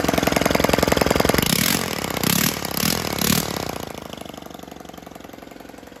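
Four-stroke motorized-bicycle kit engine running, with four quick throttle blips about two to three seconds in, then settling and growing quieter toward the end.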